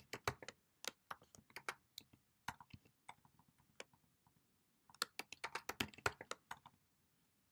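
Typing on a computer keyboard: irregular key clicks in short runs, with a brief pause about four seconds in and another near the end.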